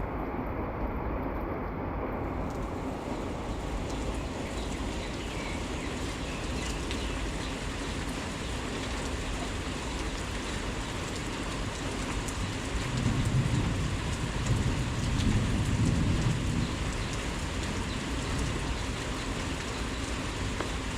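Heavy rain falling steadily, a continuous hiss of rain on surfaces. About two-thirds of the way through comes a louder low rumble lasting a few seconds.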